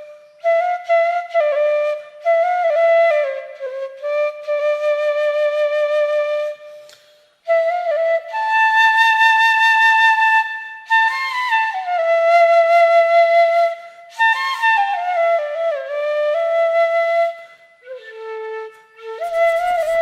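Background music: a solo flute playing a slow melody in phrases, with a brief pause about seven seconds in.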